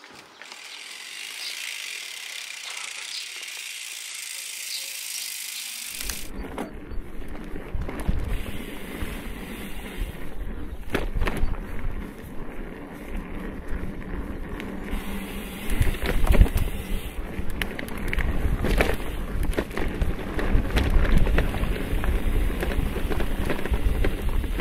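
A loaded bikepacking bike riding over a bumpy dirt singletrack, heard close from the handlebars: tyre rumble and wind noise with knocks and rattles from the bike and its bags over the bumps. It starts suddenly about six seconds in and grows louder; before that there is only a steady high hiss.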